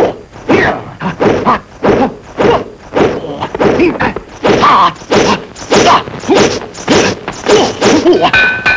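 Kung fu film fight sound effects: a quick run of punch and block impact thuds, about two a second, mixed with the fighters' short shouts and grunts.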